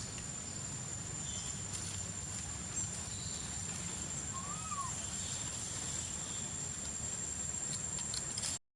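Outdoor ambience: a steady high-pitched insect drone over a low rumble, with faint scattered chirps and one short rising-and-falling call about halfway through. The sound cuts out abruptly just before the end.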